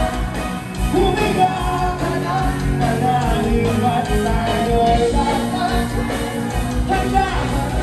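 Live band playing a song with a singer, electric guitars and a steady drum beat, amplified through the venue's sound system.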